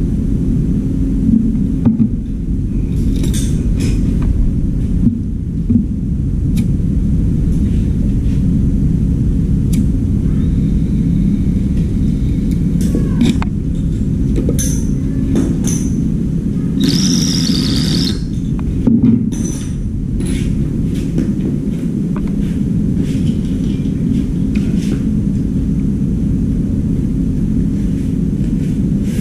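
A steady low mechanical rumble, like a machine or motor running, with scattered light clicks and a short hiss about seventeen seconds in.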